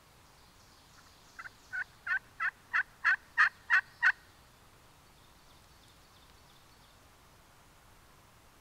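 Aluminum pot turkey call (Team Enticer Sidekick Aluminum) worked with a striker: a run of about nine yelps, roughly three a second, growing louder, imitating a hen turkey.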